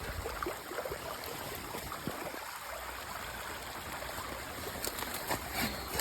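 Storm runoff rushing across a flooded field into a paddock, a steady even rush of moving water.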